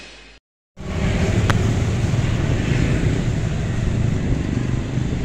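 The intro jingle fades out, followed by a brief silent gap. Steady outdoor road-traffic noise with a low rumble then begins, with one faint click about a second and a half in.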